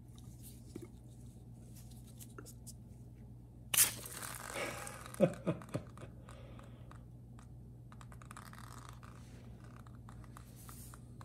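Plastic squeeze bottle squirting water into the bolt bore of a Predator generator's rotor. About four seconds in it gives a loud spluttering hiss, followed by three short squelches that fall in pitch, with softer squirts later. The water fills the bore to press the rotor off its tapered crankshaft.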